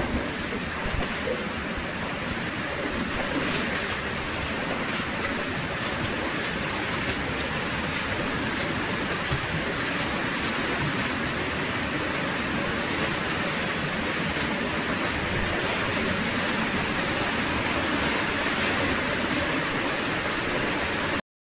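Steady rushing of flowing water in a cave stream, cutting off suddenly near the end.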